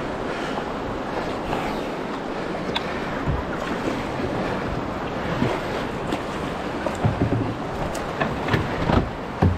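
Fast river current rushing and splashing around a canoe's hull, with wind buffeting the microphone. A few louder low thumps come near the end.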